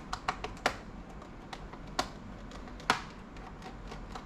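Irregular sharp clicks and taps of a screwdriver and hands on a laptop's plastic case and parts during disassembly, with the loudest clicks a little under a second in, at about two seconds and near three seconds.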